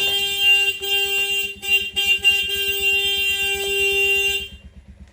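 A vehicle horn held down for about four and a half seconds, with a few very short breaks, then cutting off. Under it an engine keeps up a steady low pulsing.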